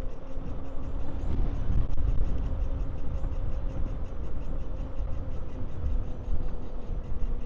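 Riding an electric dirt bike: a steady low wind and road rumble on the microphone, with a faint steady whine running underneath.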